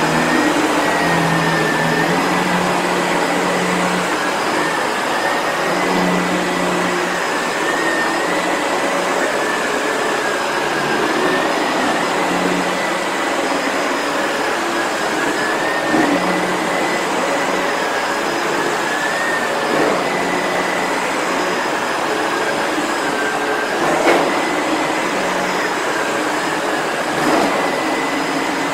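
Sebo Felix vacuum cleaner running steadily during vacuuming, with a high motor whine that wavers slightly and a lower hum that comes and goes as the load changes. There are a few brief knocks from the machine being moved about.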